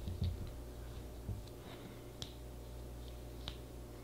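A few faint, scattered clicks and ticks of small plastic fountain pen parts being screwed together by hand, over a low steady hum.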